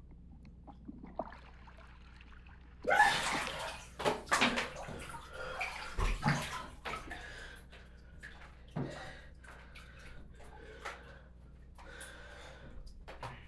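Water sloshing and splashing in irregular bursts, starting suddenly about three seconds in and loudest over the next few seconds, with a few smaller splashes later.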